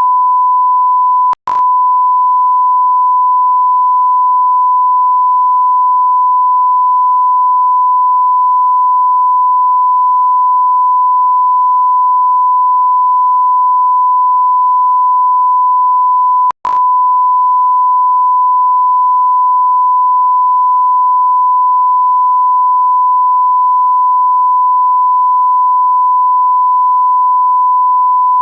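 Loud, steady 1 kHz sine-wave beep tone, broken twice by a split-second gap with a click: about a second and a half in and again about 16 seconds in.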